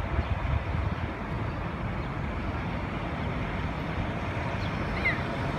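Outdoor city ambience: a steady low rumble of traffic with wind buffeting the microphone, and a short high chirp about five seconds in.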